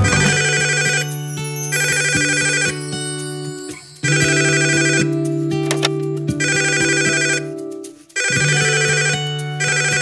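Mobile phone ringtone playing: a short electronic melody that repeats over and over, breaking off briefly about four seconds in and again about eight seconds in.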